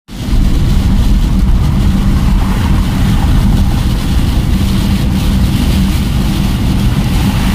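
Steady low rumble of a car driving at highway speed on a wet road, heard from inside the cabin: engine hum and tyre noise without a break.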